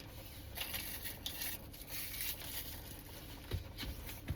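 Takeout food packaging rustling and crinkling as the bowl and its wrapping are handled, with two light knocks near the end.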